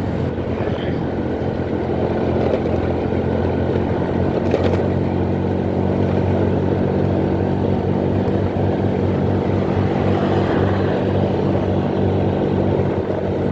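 Motorcycle engine running at a steady speed while riding, over a steady rushing noise, with one short tick about four and a half seconds in.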